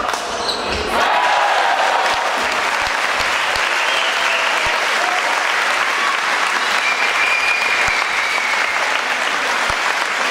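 Crowd of spectators applauding the end of a badminton rally, breaking out about a second in and continuing steadily, with a few shouts over it.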